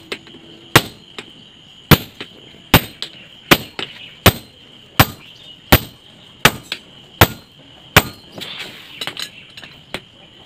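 A sledgehammer striking red-hot steel held on a small anvil, drawing out a basula (carpenter's adze) blade. Sharp metallic blows land evenly, about one every three-quarters of a second, with lighter taps and clinks between them.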